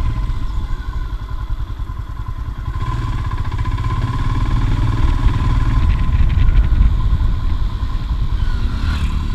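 Royal Enfield Himalayan's 411cc single-cylinder engine running while riding, its note building up toward the middle and easing off near the end.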